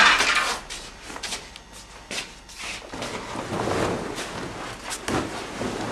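Cloth garments rustling and knocking as they are handled on their hangers, starting with a sharp knock and going on as irregular rustles.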